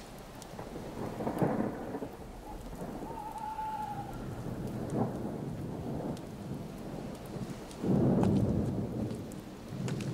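Thunderstorm: steady rain with two loud rolls of thunder, a short one about a second and a half in and a longer one starting about eight seconds in.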